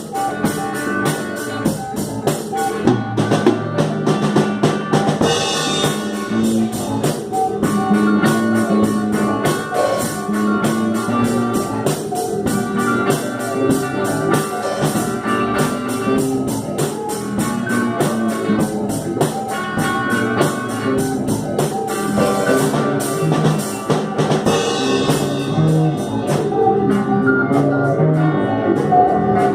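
Instrumental psychedelic rock played by a band: a drum kit keeps a busy beat of snare, rimshot and bass drum, under held guitar and synthesizer tones.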